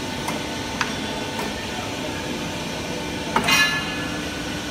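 Pipe bending machine running with a steady mechanical hum, a few light clicks in the first second and a half, and one loud metallic clank with a short ringing about three and a half seconds in.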